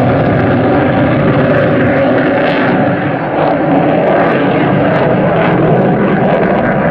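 Jet noise from a McDonnell Douglas EF-18A Hornet's twin General Electric F404 turbofans as the fighter manoeuvres overhead: loud and steady throughout.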